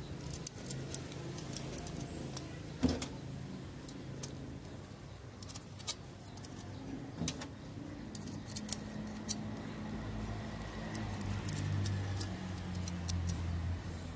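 Small metal clicks and clinks, irregular and scattered, as rivets are handled and set into a two-stroke motorcycle's fixed gear cluster, over a low steady background hum.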